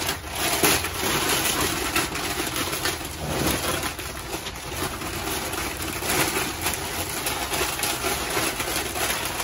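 Tissue and packing paper rustling and crinkling as hands dig through it to unwrap china plates, a dense, irregular run of crackles without a break.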